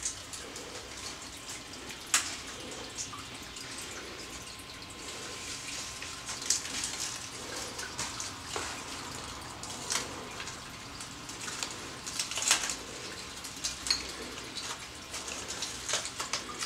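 A bag rustling and crinkling, with irregular sharp clicks and snaps, as a cockatoo pokes its beak and head into it and steps about on a tiled counter. The loudest snaps come about 2 seconds and 12.5 seconds in.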